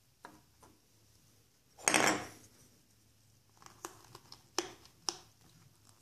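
Parts of a quick-disconnect hose fitting handled by hand: a brief louder scraping noise about two seconds in, then a string of sharp clicks as the pieces knock and fit together.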